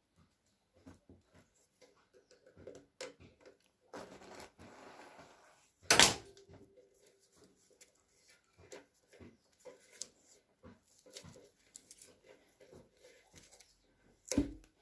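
Electrical tape being peeled off the roll and wrapped around a soldered wire joint: scattered crackly rips and small handling clicks, with a sharp knock about six seconds in and a thump near the end.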